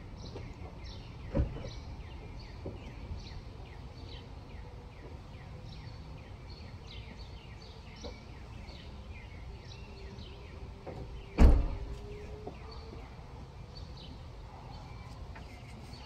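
Birds chirping in many short, falling chirps over a low outdoor rumble. There is a light knock about a second and a half in and a loud thump a little past the middle.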